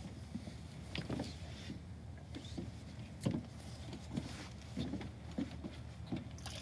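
Scattered light knocks and clunks from a champagne bottle being picked up and handled, over a steady low rumble. Near the end the champagne starts splashing as it is poured onto a boat's deck.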